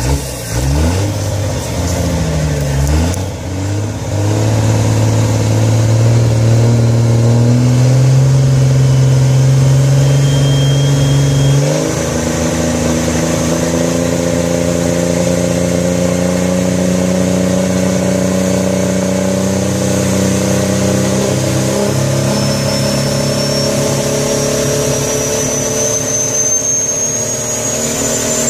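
Vehicle engine working under load, its pitch climbing slowly for about twelve seconds, dropping suddenly as at a gear change, then climbing slowly again. A thin high whine rises in pitch over the last several seconds.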